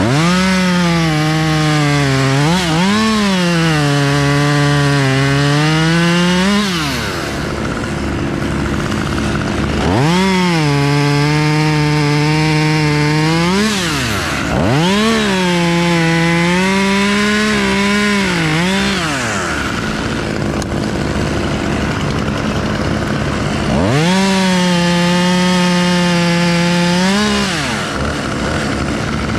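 Two-stroke chainsaw revving up and cutting through white oak three times, its pitch sagging under load during each cut and falling away between cuts. A steady, lower engine hum runs underneath throughout.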